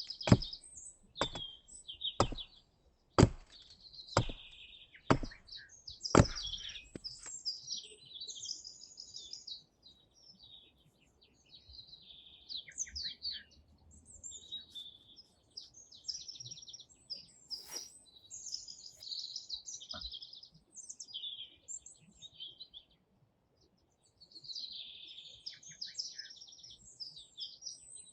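Small songbirds chirping and singing in quick trilled phrases throughout. Over the first seven seconds, sharp chopping knocks come about a second apart.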